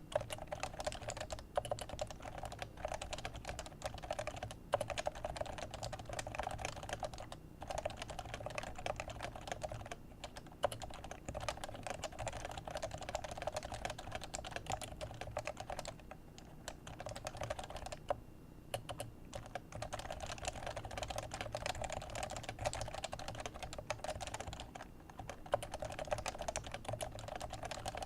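Leopold FC660c keyboard with Topre 45g electrocapacitive switches being typed on at a fast, steady pace, a dense run of soft key strokes broken by a few short pauses.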